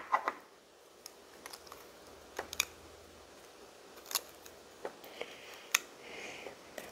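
Plastic LEGO pieces clicking and tapping as they are handled and pressed together, with about a dozen light, irregular clicks and a couple of brief soft rustles after the middle.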